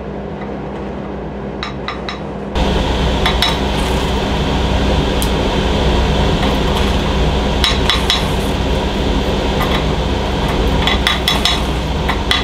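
Metal clamp and glass test tube clinking and tapping several times, over a steady rushing noise that jumps louder about two and a half seconds in.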